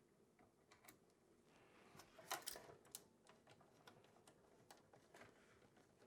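Faint, scattered small clicks and ticks of a screwdriver turning motherboard screws into the standoffs of a PC case, with a brief louder cluster of clicks about two and a half seconds in.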